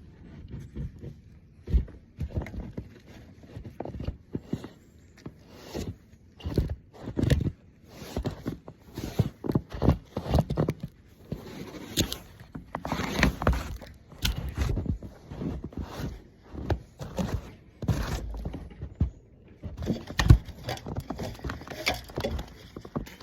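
Irregular knocks, clunks and footsteps of someone working hands-on, moving about and handling parts, with no steady rhythm.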